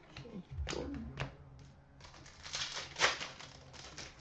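Trading cards being handled: a few sharp clicks and taps, and about halfway through a stretch of card stock sliding and rustling.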